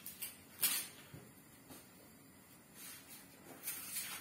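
A few brief rustling and scraping noises of kitchen handling. The loudest comes about half a second in, and a small cluster follows near the end.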